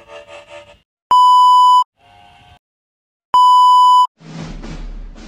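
Television colour-bar test tone: a loud, steady beep sounding twice, each about three quarters of a second long, with brief scraps of other sound between. Near the end, music starts with a few drum hits.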